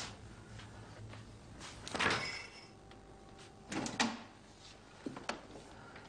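A refrigerator door being opened, with knocks and rattles from the door and its contents: three sharp sounds, about two, four and five seconds in, the first with a brief clattering ring.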